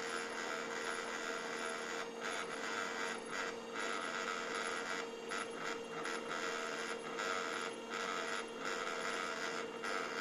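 HP LaserJet 1200 laser printer humming on and on, a steady mechanical whirr with a constant tone and brief dips now and then, because it never goes into the ready state. The fault was cured by replacing the laser scanner unit.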